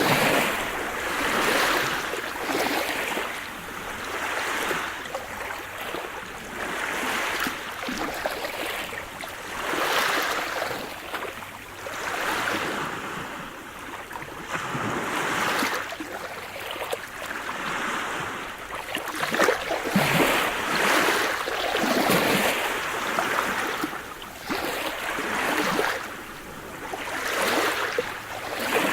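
Sea surf: waves breaking and washing up the shore, the rushing hiss swelling and falling away every two to three seconds.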